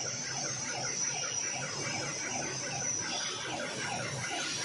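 Spray-painting booth machinery running: a steady hiss from the robot's spray gun and booth air, over a rapid, evenly repeating squeal of about four a second.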